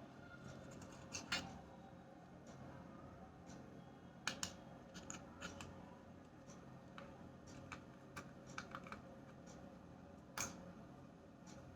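Scattered faint, light clicks and taps of small hard objects being handled, over a low steady background hum.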